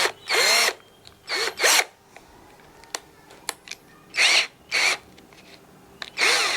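Cordless drill run in about five short trigger pulls, the motor whirring up and winding back down each time, with small clicks in between.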